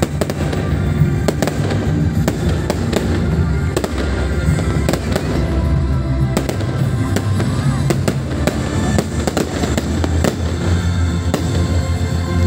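Fireworks display: aerial shells bursting one after another in a steady barrage of sharp bangs, over music with a heavy low bass.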